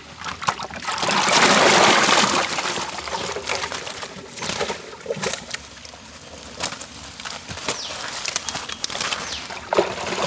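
Water pouring and splashing for about two seconds as live snakehead murrel fish are tipped out, then scattered wet slaps and taps of the fish flopping on a woven mat and being handled.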